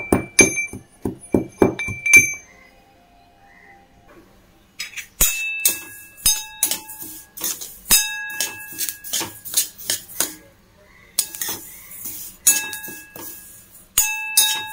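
Steel mortar and pestle pounding cardamom and nutmeg into powder: a quick run of metallic strikes with a ringing clink, stopping after about two seconds. After a short pause, a steel spoon stirs dry-roasting sesame seeds in a steel bowl, scraping and clinking against the bowl, which rings with each stroke.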